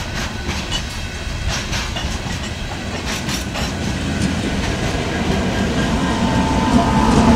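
Empty rock hopper cars of a freight train rolling past, their wheels clicking over rail joints. About six seconds in, the rear distributed-power Union Pacific diesel locomotives arrive, and a steady engine hum comes in and grows louder.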